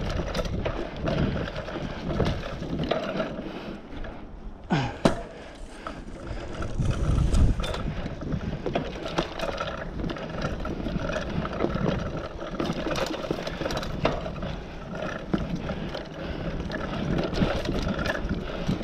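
Mountain bike riding along a dirt singletrack: tyres rolling over packed dirt and leaves, with the bike rattling and clicking over bumps. A brief falling squeak comes about five seconds in and a heavy low thump about seven seconds in.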